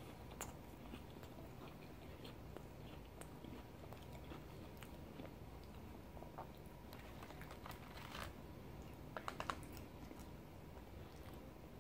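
Faint crunching and chewing of an Oreo cookie: scattered small clicks, with a quick run of several clicks about nine seconds in.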